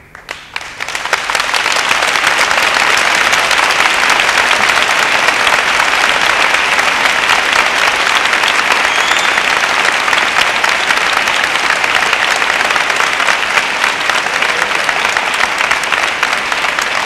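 A large audience applauding: the clapping starts just after the pause in speech, swells over about two seconds, then holds steady and loud.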